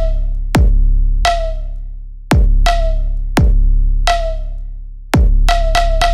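Electronic background music with a drum-machine beat: deep booming kick drums dropping in pitch over a steady low bass, and sharp snare hits in between, with a quick run of three snare hits near the end.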